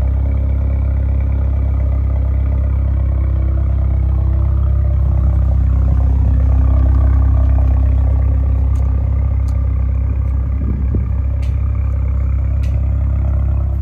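Mercedes-Benz W177 A-Class engine idling steadily, heard at the exhaust tailpipes as a loud low drone that swells slightly about halfway through. A few faint clicks come in the second half.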